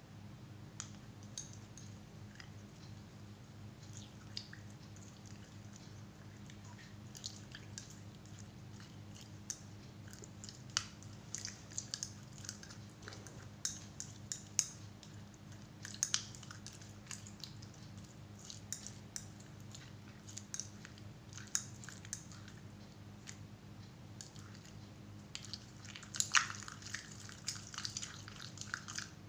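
Slime being worked by hand, with irregular small wet clicks, squelches and crackles that come thickest around the middle and near the end, over a faint steady low hum.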